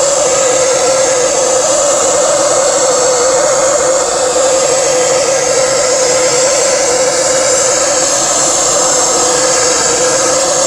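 Steady roaring hiss of a gas torch flame heating a transmission gear to free it from the shaft, with a wavering low rumble.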